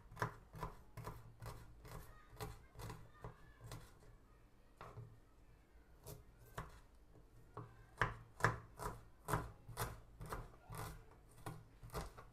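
Kitchen knife slicing shallots on a wooden cutting board: a run of sharp taps of the blade on the board, about two a second. The taps thin out for a few seconds partway through, then come quickly again.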